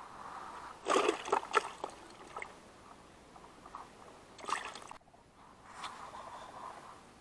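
Water splashing and sloshing in reedy shallows as a freshly caught crucian carp is put into the water at the bank. There are two bursts of sharp splashes, a longer one about a second in and a shorter one about four and a half seconds in.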